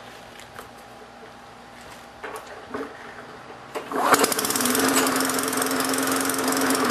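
A few faint clicks, then about four seconds in the Tecumseh engine of a walk-behind lawn mower starts and settles straight into running steadily, showing the engine runs with the newly fitted brake cable.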